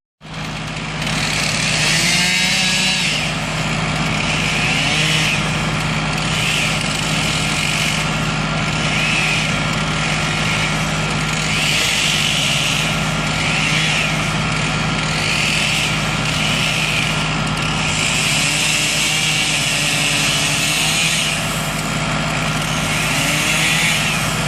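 A heavy machine's engine running steadily, with a higher hiss that swells and fades every second or two.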